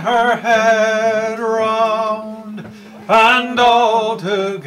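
Sea shanty sung by several voices in long held notes, with a steady low note sounding underneath. The singing breaks off briefly partway through, and a new phrase comes in strongly about three seconds in.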